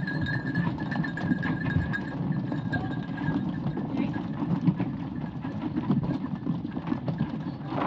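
Goats' hooves making many short clicks as the herd moves along, over a steady low rumble.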